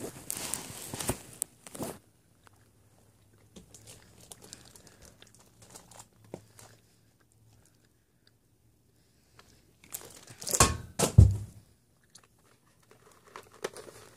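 Chewing of Hot Tamales candies with crinkling and handling noise: a rustling burst at the start, faint rustles through the middle, and a louder rustle with a dull thump about ten to eleven seconds in.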